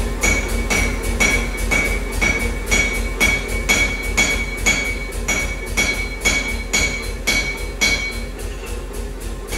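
Rhythmic metallic strikes, about two and a half a second, each leaving a short bright ring, over a steady low hum.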